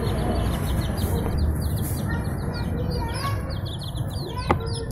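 Baby chicks peeping: a quick, continuous run of short high chirps over a steady low rumble, with a single click near the end.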